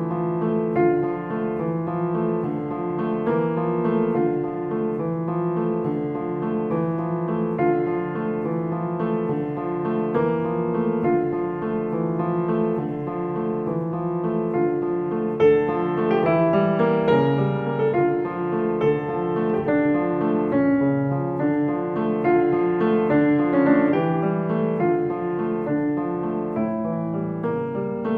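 Background piano music, an unbroken run of evenly paced notes.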